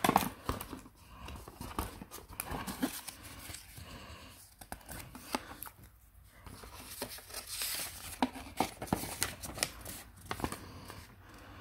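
Paper and cardboard packaging rustling and scraping as a paper insert and a thin paper user manual are handled and lifted out of a cardboard box, with many small taps and clicks. The loudest rustle comes right at the start.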